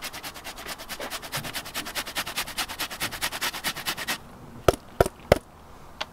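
Fresh ginger root grated on a flat stainless steel hand grater: quick, even rasping strokes, about eight a second, stopping a little past four seconds in. Then the grater gives three sharp taps.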